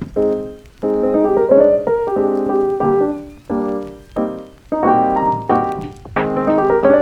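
Background music: a piano-led instrumental track, chords struck in a steady rhythm.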